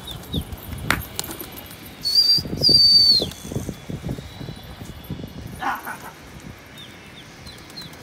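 Flock of domestic pigeons flapping their wings as they are flown from a rooftop. About two seconds in comes the loudest sound, a high whistle-like tone held for about a second that drops at its end.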